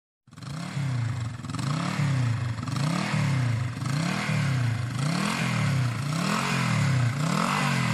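An engine revving over and over, its pitch rising and falling evenly about once a second.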